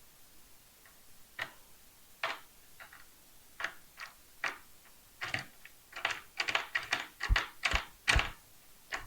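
Plastic LEGO Technic pieces clicking and clattering as they are handled and fitted together. The clicks are sparse at first and come faster in the second half, with a few soft thumps near the end.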